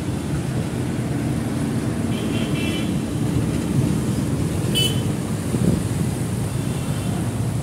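Road traffic running steadily on the bridge roadway, a continuous low rumble of passing cars, buses and motorbikes. A vehicle horn honks briefly about two seconds in, and there is a short sharp high sound about five seconds in.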